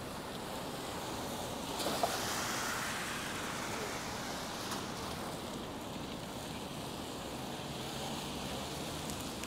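Steady hiss of tyres on a rain-wet street with wind on the microphone, swelling briefly about two seconds in.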